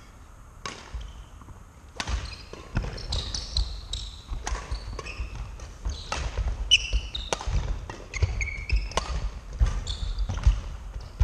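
Badminton rally: sharp cracks of rackets hitting the shuttlecock, with trainers squeaking and thudding on the wooden court floor. The hits come thick and fast from about two seconds in.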